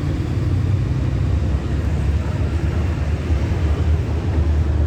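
Steady low rumble of background noise, with no distinct knocks or clicks.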